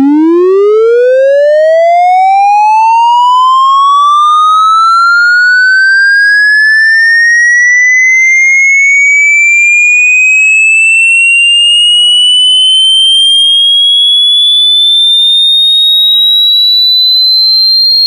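Electronic ringtone: a single synthetic tone held continuously and sliding steadily upward in pitch from a low hum to a high whistle, climbing fastest at first and then more slowly.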